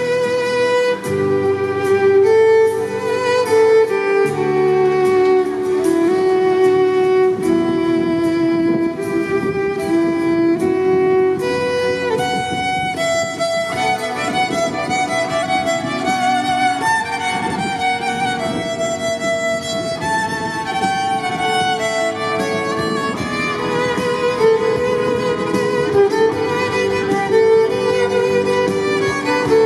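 Violin melody played through a loudspeaker over a recorded backing track with bass and a beat. Long held notes at first, then a quicker passage of short notes from about the middle.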